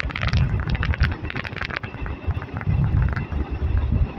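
Passenger train running along the track, a heavy steady rumble with wind buffeting the microphone and a quick run of sharp clicks and clatter in the first couple of seconds.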